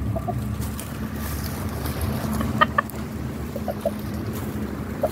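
Domestic chickens clucking in short, scattered calls, a few louder ones about two and a half seconds in, over a steady low hum.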